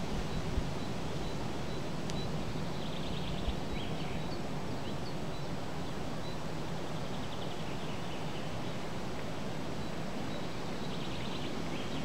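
Steady low rush of wind, with faint bird chirps and trills coming through a few times.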